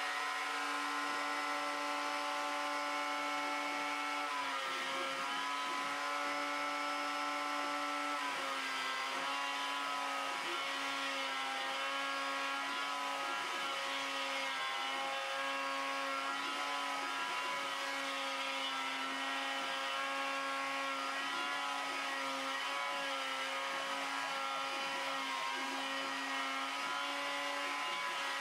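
Router motor on a homemade CNC machine running with a steady whine as its bit routes pockets into a wooden guitar body blank. The pitch dips slightly about four seconds in and again about eight seconds in as the cut loads the motor.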